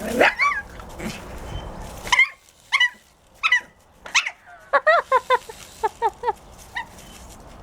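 A dog yipping and whining in short, high-pitched calls, excited as she chases a toy helicopter. The calls are spaced at first, then come in a quick run of rapid yips past the middle, with one last yip near the end.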